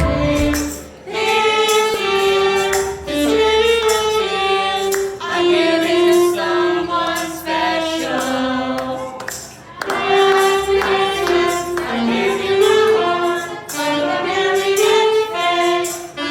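Music: a song with several singing voices layered in harmony, like a small choir, over light accompaniment.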